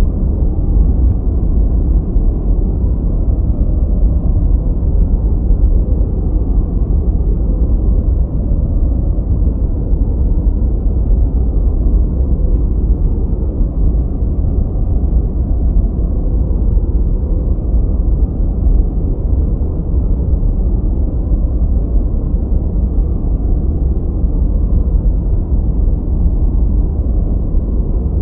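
Steady noise played as a study and sleep aid: an even, deep, muffled rushing with no rhythm or events, weighted toward the low end rather than hissy.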